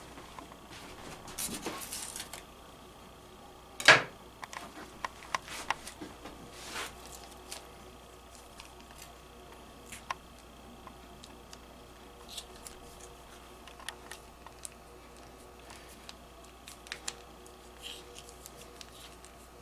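Scattered small clicks and crinkles of a plastic pizza-sauce pouch being cut open with a knife and squeezed out onto the dough, with one sharp click about four seconds in.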